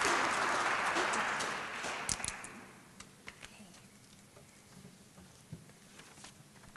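Audience applauding, fading out about two and a half seconds in, then a quiet room with a few faint clicks and taps.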